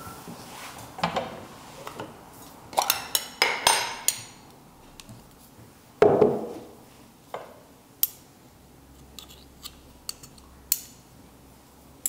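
Glass teacups clinking and being set down on cork coasters on a wooden table: a run of clinks, some with a short ring, about three to four seconds in, a louder knock about six seconds in, then a few light clicks.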